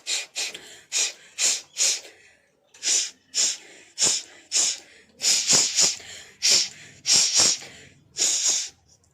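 Forceful blasts of breath out through the nose, clearing the nasal passages after sutra neti: about a dozen short, sharp snorts in uneven groups, with brief pauses between.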